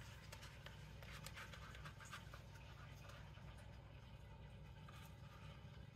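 Near silence: room tone with a steady low hum and a few faint scattered ticks.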